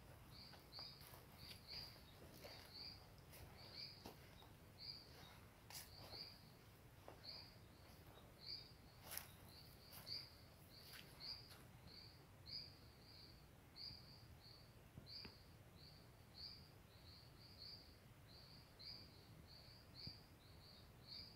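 Faint high-pitched chirping in the woods, one short chirp repeated steadily about twice a second, with occasional soft crackles of footsteps on dry leaf litter.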